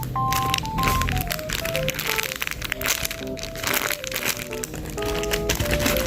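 Background music with a light melody of plucked-sounding notes, over frequent crinkling and crackling of packaging being handled during wrapping.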